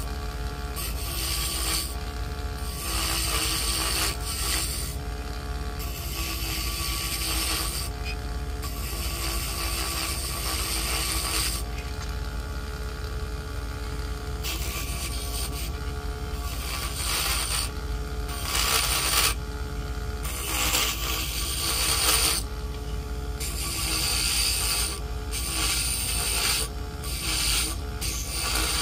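Mini woodworking lathe's small motor running steadily while a hand chisel scrapes the spinning wood, the scraping starting and stopping in passes of a few seconds each.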